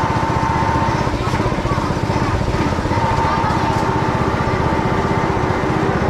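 A small engine running steadily, with a high whine that fades out after about a second and comes back about three seconds in.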